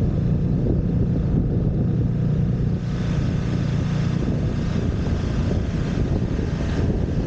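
Motorcycle engine running steadily at cruising speed, a low drone mixed with wind rushing over the microphone.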